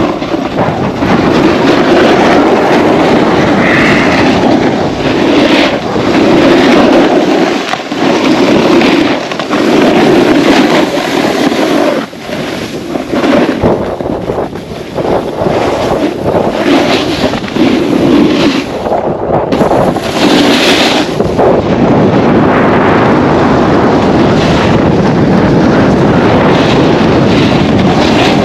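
Wind buffeting the microphone during a run down a snowy slope, with the board or skis hissing and scraping over the snow in a rough rhythm of turns about once a second.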